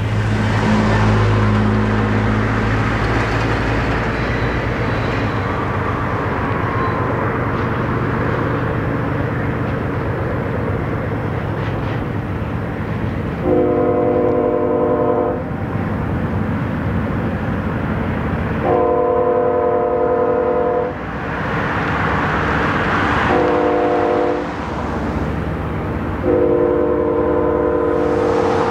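Distant diesel locomotive air horn, several notes sounding together, blown in the grade-crossing pattern: two long blasts, a short one, then a final long one that is still sounding at the end. The train is blowing for a crossing about a mile away. A steady low rumble lies underneath.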